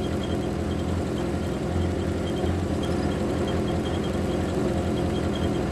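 Vehicle engine running steadily at idle, a continuous low rumble with no change in speed.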